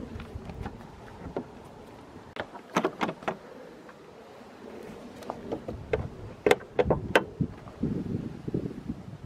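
Jeep Wrangler JL hood latches being unclipped and the hood lifted: a few sharp clicks and clunks in two clusters, about three seconds in and again around seven seconds, with handling noise between.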